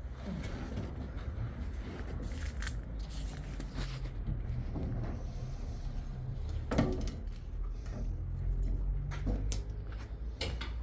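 Building-work noise: a handful of sharp knocks and clatters, the loudest a little under seven seconds in, over a low steady rumble.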